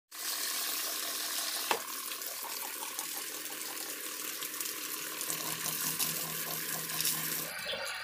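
Water jetting from the outlet hose of a homemade pump driven by a used washing-machine motor, spraying and splashing into a tub in a steady rush, with a single sharp click just under two seconds in.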